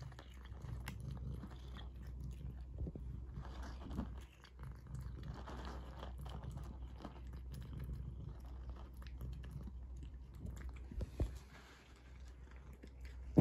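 A cat crunching dry kibble: a run of small, irregular crisp crunches and clicks as it chews, thinning out near the end.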